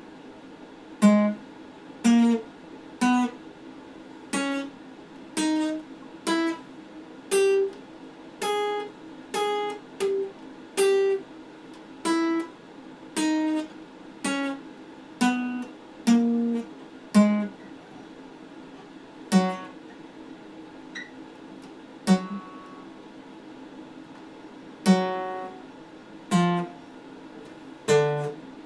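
Acoustic guitar played slowly as a scale exercise: single plucked notes about one a second, climbing step by step and then coming back down, with fewer, scattered notes and pauses in the last third.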